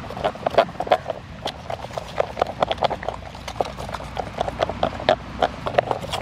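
A spoon stirring thick slime in a disposable aluminium foil pie pan, knocking and scraping the thin foil in quick, irregular clicks, several a second.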